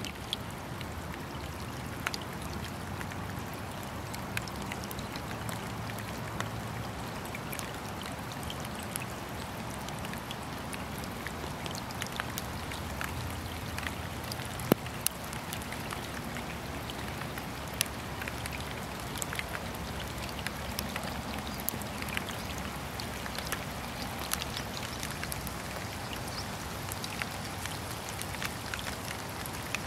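Steady rain falling, with scattered individual raindrops ticking close by, a couple of them sharper and louder midway through.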